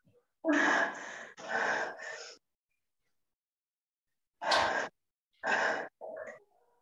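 A person breathing hard while straining through chin-ups: two long, forceful exhales near the start, then three short gasps a few seconds later.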